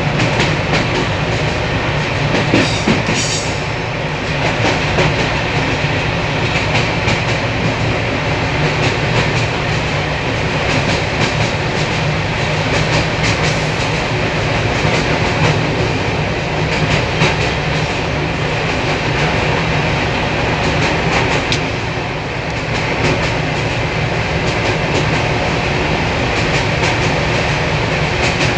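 Bulgarian MDD5 locomotive running along the track, heard from its cab: a steady drone with the wheels clicking over the rails.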